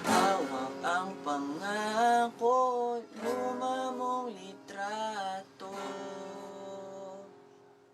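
Closing bars of an acoustic-guitar ballad: guitar with a gliding melody line over it, ending on a held chord that fades out over the last two seconds.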